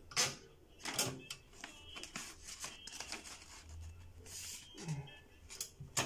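Scattered taps, clicks and paper rustles from sheets of paper and a pen being handled close to the microphone. The sharpest tap comes just after the start and another near the end.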